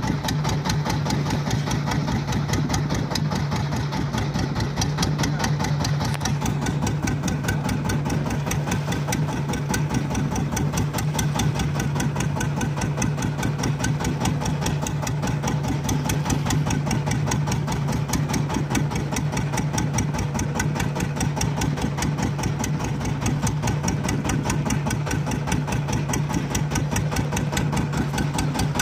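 Fishing boat's engine running steadily with a fast, even beat.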